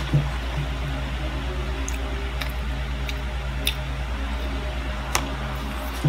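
Syrup squeezed from a plastic packet over hotcakes: a few light, sharp clicks and crinkles from the packet, over a steady low hum.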